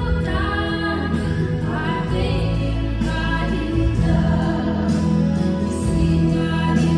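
Church congregation singing a gospel hymn together over amplified instrumental accompaniment, with steady bass notes beneath the voices.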